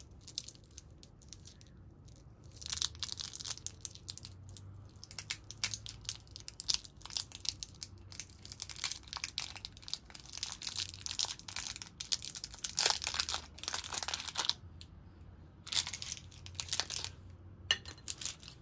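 Foil wrapper of a Cadbury Dairy Milk lollipop crinkling and tearing as fingers pick and peel it open, in irregular crackling bursts. The crackling starts a couple of seconds in and pauses briefly near the end before a last few crinkles.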